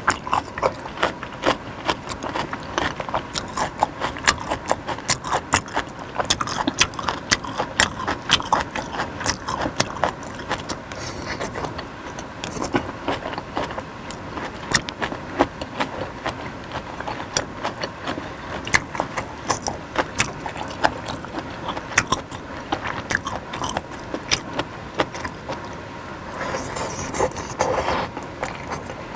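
Close-miked eating of beef and vegetable suki soup: chewing and biting, with many quick sharp clicks throughout and a longer rush of sound about 26 seconds in.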